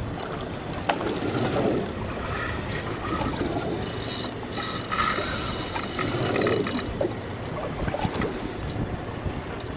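Sport-fishing boat's engine running, with water washing along the hull and wind on the microphone. A louder hissing stretch comes about four to seven seconds in, and there are a few scattered clicks.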